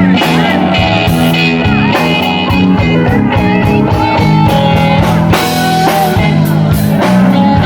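Live band playing an instrumental break, with a lead guitar line of bending notes over bass and drums.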